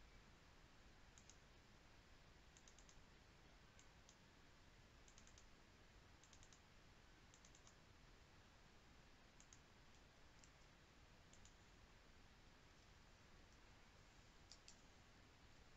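Faint computer mouse clicks, mostly in quick pairs like double-clicks, about ten times at uneven intervals over near-silent room hiss.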